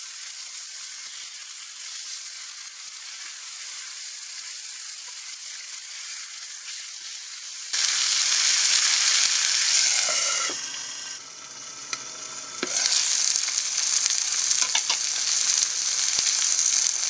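Fish rolls sizzling in oil in a frying pan as they are turned with tongs. The sizzle is faint at first and turns much louder about eight seconds in, dips briefly, then comes back loud, with a few light clicks of the tongs against the pan.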